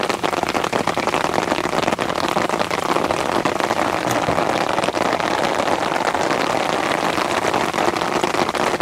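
Steady rain, a dense patter of many small drops on the fabric of a beach umbrella overhead and on the water around a kayak.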